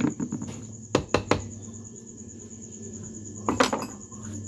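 Small metal tools and spinning-reel parts clicking and tapping on a workbench: three quick sharp clicks about a second in, and another short cluster of clicks about three and a half seconds in.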